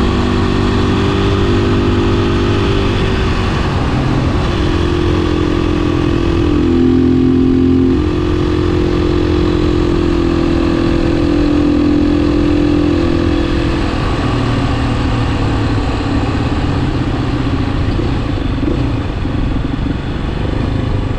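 2016 Beta 500 RS single-cylinder four-stroke engine running while the supermoto is ridden. The engine note steps up and down with throttle and gear changes, is loudest about a third of the way in and eases off after about two thirds.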